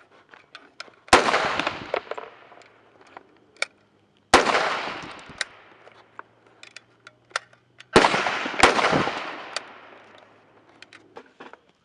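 Stag Arms AR-15 rifle firing four single shots, the last two close together, each followed by a long echoing decay. Fainter sharp cracks sound in between.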